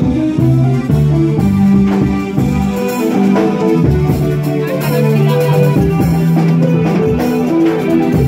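A live band playing, with guitar and a drum kit keeping a steady beat under held low notes.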